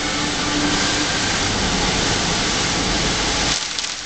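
Loud rushing of a car driving through heavy rain, tyres on a streaming wet road and rain on the bodywork, heard inside the car. It builds up and then drops away suddenly about three and a half seconds in.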